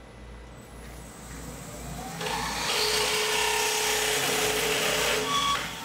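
Power tool working a metal frame tube. It builds over the first two seconds, runs steadily with a whine for about three seconds, then stops shortly before the end.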